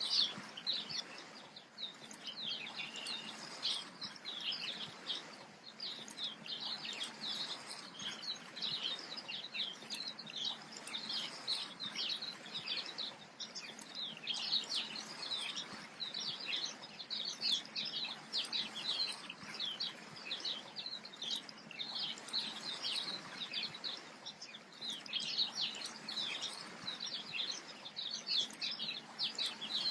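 Small birds chirping continuously, many short high chirps overlapping in a dense, steady chatter over a faint hiss.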